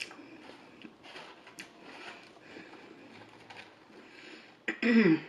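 Close-miked chewing and mouth noises from eating fried chicken fingers: faint, with small wet clicks. Near the end comes a short, loud vocal sound that falls in pitch.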